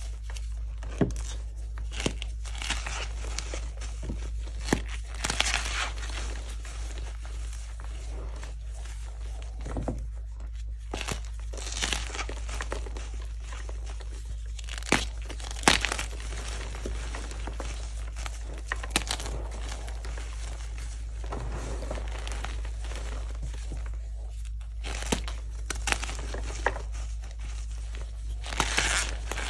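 Hands crushing and crumbling soft gym chalk chunks coated in corn starch and holi powder: continuous soft crunching and crackling of the breaking chalk and squeezed powder, with sharper crunches every few seconds.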